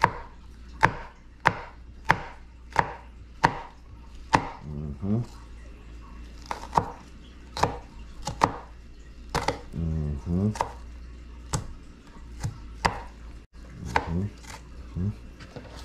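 Knife slicing bell pepper on a cutting board: a run of sharp knocks, about one and a half a second at first, then more irregular.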